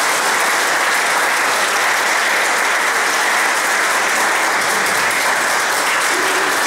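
An audience applauding: a steady round of many hands clapping.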